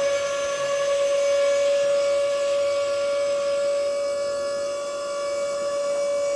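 A steady high-pitched whine, held on one unchanging pitch, as the toy construction crane works its hook.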